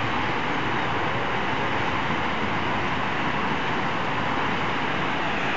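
Floodwater rushing through a breached river embankment: a steady, unbroken rush of turbulent water.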